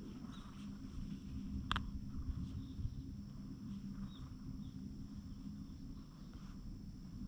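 Quiet outdoor ambience: a steady low rumble, a few faint short high chirps, and one sharp click a little under two seconds in.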